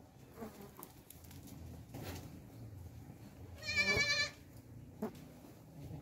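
A goat bleats once, a single wavering call under a second long, a little past halfway through.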